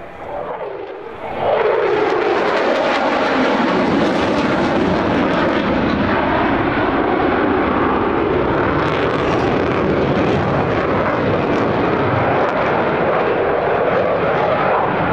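Jet noise of a Mitsubishi F-2B fighter's single General Electric F110 turbofan as the jet passes in a banked turn. It swells suddenly about a second and a half in, with a sweep falling in pitch, then stays loud and steady.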